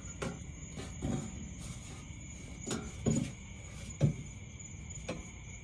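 A few short knocks and clicks of plastic push-pin clips being worked out of a Jeep Wrangler JK cowl, the loudest about three and four seconds in. Crickets chirp steadily underneath.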